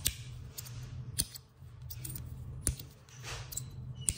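Metal Lowrey magnetic fidget slider being slid back and forth: about four sharp metallic clicks, spaced a little over a second apart, as the magnets snap the slider into place at each end. A brief soft sliding swish comes between two of the clicks.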